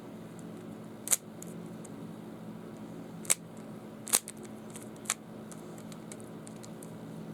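Four sharp, irregularly spaced clicks of a Rubik's Cube being handled, its layers snapping as they are turned, over a steady low hum.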